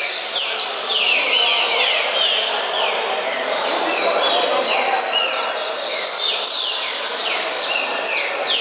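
Saffron finch (canário-da-terra) singing its fast song: quick runs of short notes sweeping downward, repeated without a break, over a steady background murmur.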